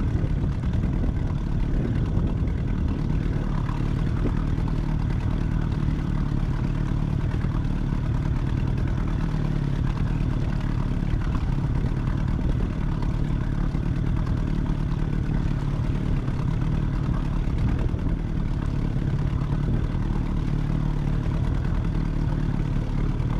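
Boat's outboard motor running steadily at low trolling speed, a constant low engine drone with no change in revs.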